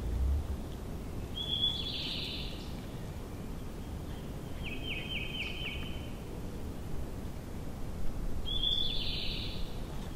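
Small songbirds singing over steady background noise. A short song opens with a clear high note and runs into a buzzy trill about a second and a half in, and again near the end. In the middle comes a run of about six quick repeated notes.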